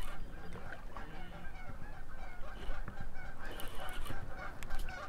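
A flock of geese honking, many short calls overlapping one after another without a break.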